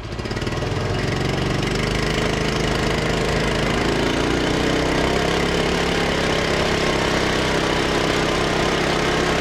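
Rokon Ranger's small single-cylinder Kohler engine running under way. Its pitch rises over the first few seconds as the bike picks up speed, then holds steady.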